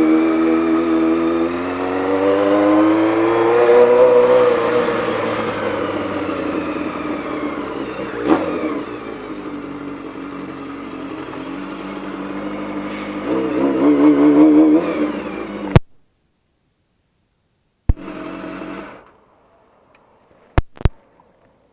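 Honda CBX 750 inline-four motorcycle engine running, its pitch rising and falling twice as it is revved, with a click about eight seconds in. The sound cuts off abruptly about sixteen seconds in; a brief hum and a few sharp clicks follow.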